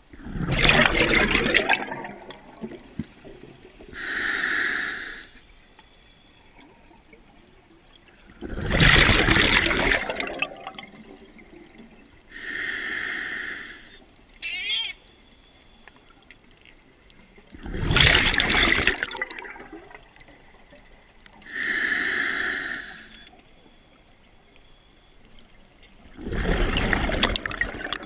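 Scuba diver breathing through a regulator, heard underwater. Four loud, rushing bursts of exhaled bubbles, each about two seconds long, alternate with three shorter, smoother hisses of inhalation through the demand valve, one breath roughly every nine seconds.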